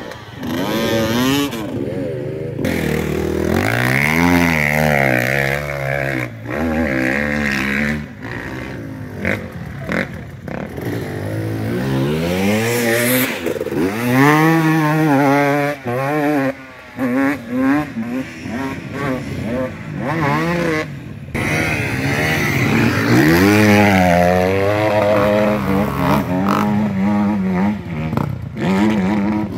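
Off-road vehicle engines revving hard, the pitch climbing and dropping again and again as the throttle is worked and gears change.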